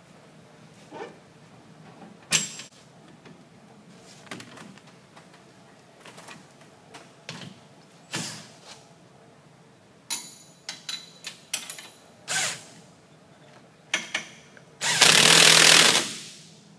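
Scattered metal clinks and knocks of tools and hardware as a suspension A-arm bolt is fitted. Near the end a power tool runs hard for about a second, driving the bolt home.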